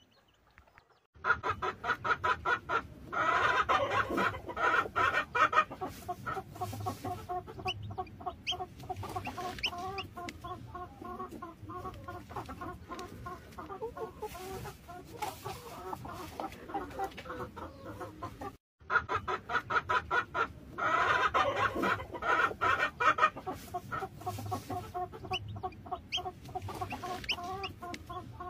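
A flock of chickens clucking continuously as they feed, starting about a second in, with a brief break about two-thirds through.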